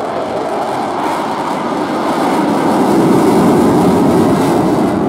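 RAF Eurofighter Typhoon's twin EJ200 jet engines in afterburner, a dense jet noise that swells louder about two seconds in as the jet powers out of a slow high-alpha pass.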